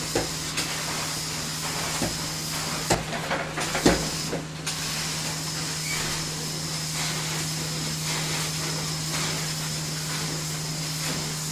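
Carpet-cleaning extraction machine running steadily, its wand hissing with spray and suction as it is drawn across a rug over a constant machine hum. A few sharp knocks come in the first four seconds.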